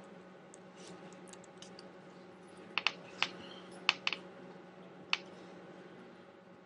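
Laptop keys being pressed: about six short, sharp clicks, a couple of them in quick pairs, between about three and five seconds in, over a faint steady hum.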